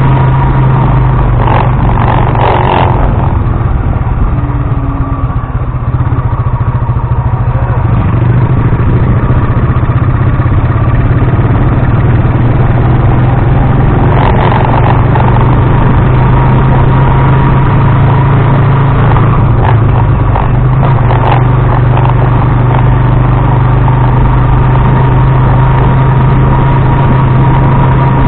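Tricycle's motorcycle engine running steadily while driving: a loud, constant low drone with a few short rattles. It comes with heavy vibration noise, which the uploader blames on the action camera's waterproof casing.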